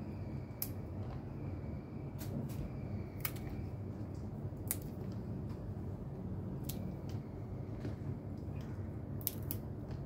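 Green chili peppers being cut: irregular sharp clicks, roughly one a second, some with a faint short ring, over a steady low hum.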